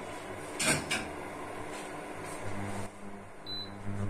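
Induction cooktop humming steadily under a pot of simmering milk, with two sharp clicks a little under a second in and a short high beep near the end. A deeper hum joins about halfway through.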